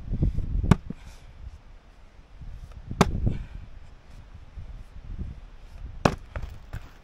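An axe splitting firewood rounds: three sharp blows, about three seconds apart.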